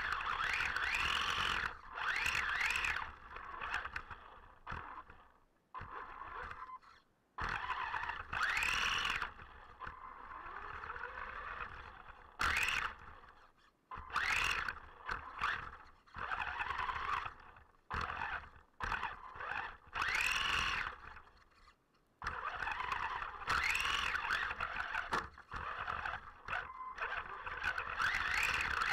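RC car's motor and drivetrain whining up and down in repeated short throttle bursts, heard from a camera on the car itself, with brief near-silent stops between bursts.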